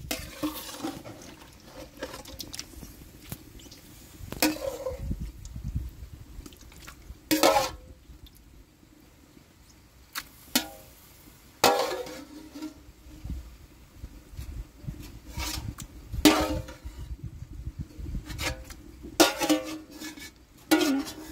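Metal spatula scraping and clanking against an aluminium bowl while scooping out wet raw chicken offal. About seven sharp hits come at irregular intervals a few seconds apart, each ringing briefly.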